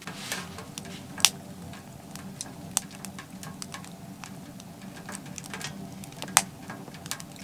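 Wood fire crackling in a small steel tent stove, with irregular pops and snaps, the sharpest about a second in and again past six seconds, over a steady low hum.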